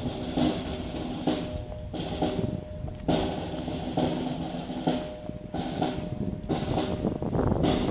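Snare drum playing a continuous roll, with a few brief dips.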